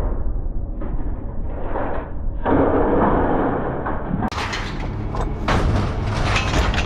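Scrap metal being unloaded from a pickup truck bed: a long scraping drag about two and a half seconds in, then a run of clanks and bangs as pieces are thrown out in the second half.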